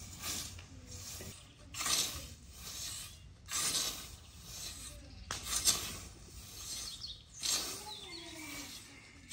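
Hand scythe swishing through long grass, five cutting strokes spaced about two seconds apart.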